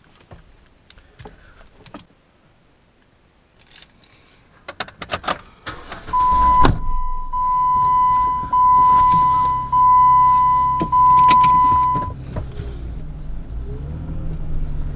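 Keys jangling and clicks in a Jeep Wrangler's cabin, then the engine starts suddenly about six seconds in and runs steadily at idle. A steady, high warning chime sounds with the engine for about six seconds, with short breaks, and stops once the driver's seatbelt is buckled.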